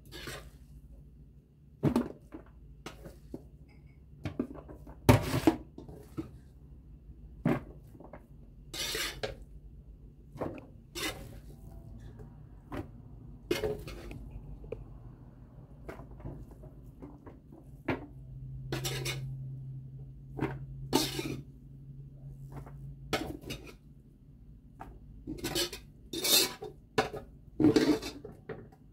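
Metal spoon scraping and knocking against an aluminium cooking pot as fried rice is scooped out, in irregular clatters about once a second. A low steady hum runs underneath.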